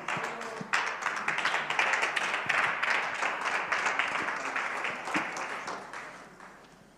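Congregation applauding, the clapping dying away over the last second or so.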